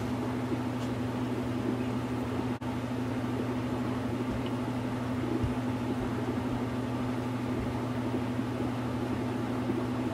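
Steady low mechanical hum at one unchanging pitch.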